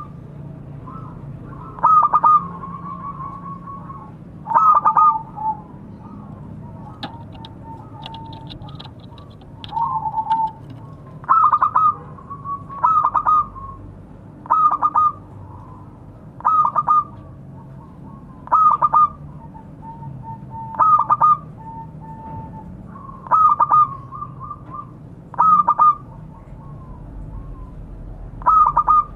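Zebra dove (perkutut) cooing: a short stuttering, trilling phrase repeated about every two seconds.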